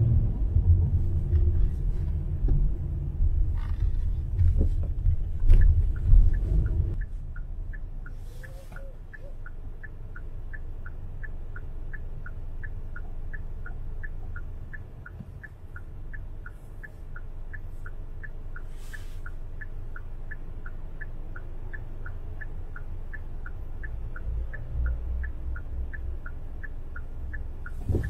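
City street sound: a heavy low traffic rumble for the first several seconds, dropping away about seven seconds in. After that, a short high chirp or beep repeats evenly about twice a second over quieter street noise.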